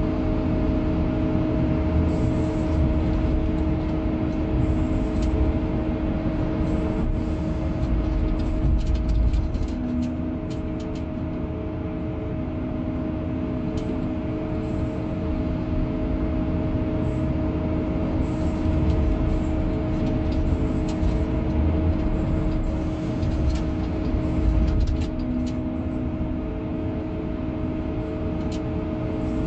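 Excavator's diesel engine and hydraulics running steadily while the bucket digs into dirt, with a constant hum, a low rumble that swells a few times, and scattered clicks and clatter of stones and clods.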